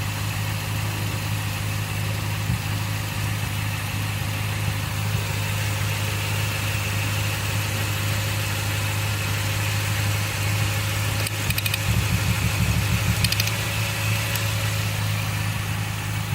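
Car engine idling hot during a misfire test with coil-pack wires being pulled: a steady, even idle. Near the end it turns briefly uneven and a little louder before settling back.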